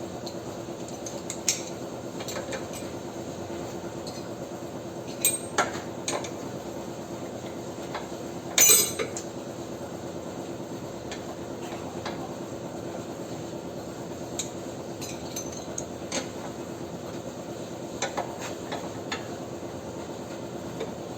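Hand tools and steel suspension parts clinking and knocking while a car's ball joint is worked loose, with a dozen or so scattered metal knocks, the loudest about nine seconds in. A steady low hum runs underneath.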